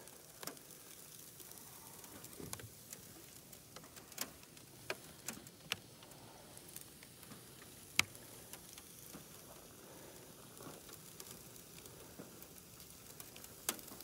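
Liquid nitrogen boiling off a car's frozen windshield and hood with a faint hiss, broken by scattered sharp crackles and ticks from the freezing glass, seal and paint. The loudest crack comes about eight seconds in.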